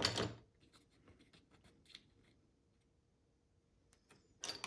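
Small clicks and rustles of tiny screws and a plastic key shell being handled, with a short louder scrape right at the start and another near the end.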